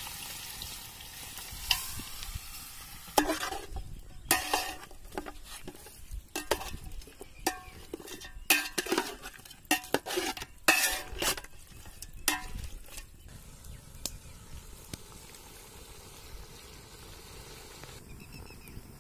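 Chicken pieces sizzling in hot sesame oil in a metal cooking pot. From about three seconds in, a perforated metal ladle scrapes and knocks against the pot again and again as the meat is stirred, then the stirring stops and only a quieter, steady sizzle remains.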